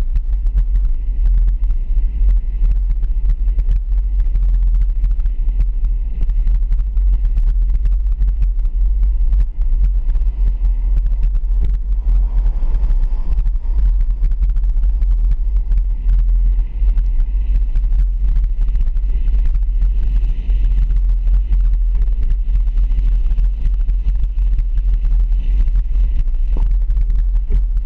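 Steady low rumble of a vehicle driving slowly down a street, picked up by a camera mounted on the outside of its hood.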